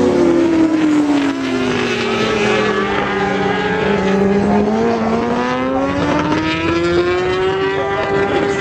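Superbike racing motorcycle engines on track. The main engine note falls steadily for about four seconds as the bikes slow for a corner, then rises again as they accelerate out, with other bikes' engines overlapping.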